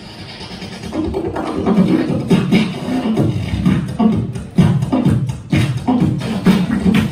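Solo beatboxing into a handheld microphone: a rhythmic run of vocal kick, snare and bass sounds that picks up after a quieter first second.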